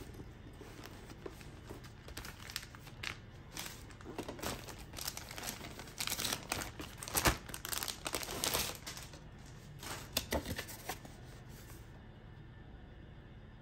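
Clear plastic packaging bag crinkling and rustling in the hands in quick irregular crackles, loudest around the middle and dying away near the end.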